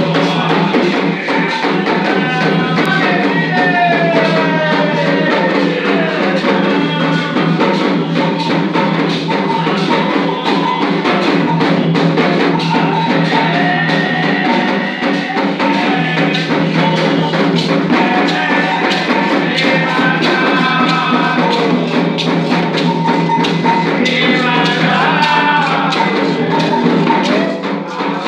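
Music with steady percussion, tambourine among it, and gliding melodic lines, perhaps singing, over a held chord.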